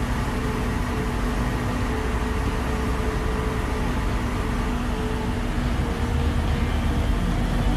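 Motor yacht under way: the steady drone of its engines over the rushing of wake water.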